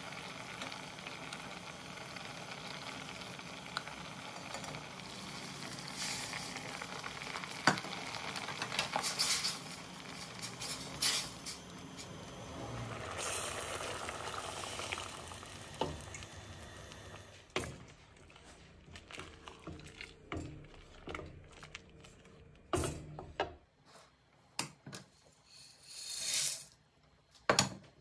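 A pot of fava bean broth bubbling steadily on a gas stove. About halfway through it goes quieter, with scattered knocks and clinks of utensils against the stainless steel pot.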